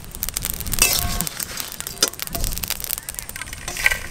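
Whole spices (coriander and cumin seeds, dried red chillies) crackling and ticking as they dry-roast in an aluminium wok over a wood fire. Just before the end there is a short rush of scraping and clatter as the roasted spices are tipped from the wok onto a plate.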